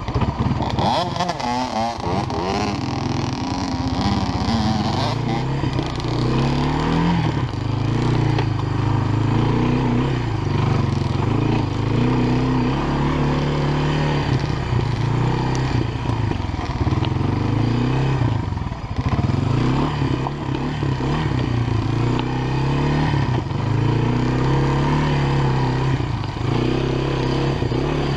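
Honda FourTrax ATV engine running under way, its pitch rising and falling repeatedly as the throttle is worked along a rough trail.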